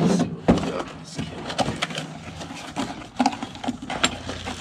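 Irregular knocks and clicks over a low steady hum, with a louder knock at the start and another about half a second in.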